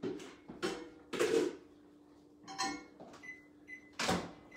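Microwave oven being loaded and set: a few knocks and clunks from the door and tray, then two short keypad beeps, and a louder sharp knock near the end.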